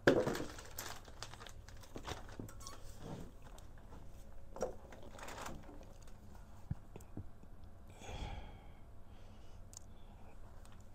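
Packaging being handled: a plastic bag crinkling and papers rustling, with scattered light clicks and knocks. The loudest crinkle comes right at the start.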